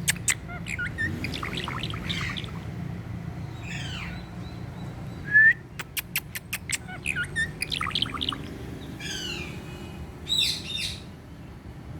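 Indian ringneck parrot chirping and squawking in short, gliding calls, with one loud squawk about halfway through followed by a quick run of sharp clicks.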